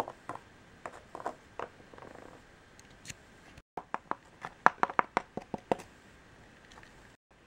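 Light plastic taps and clicks of Littlest Pet Shop toy figures being hopped by hand across a model set, sparse at first, then a quicker run of taps. The sound cuts out completely twice for an instant.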